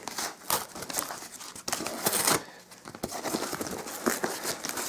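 Large cardboard shipping box being ripped open by hand: irregular tearing and rustling of cardboard and crumpled brown packing paper, with a longer rip about two seconds in.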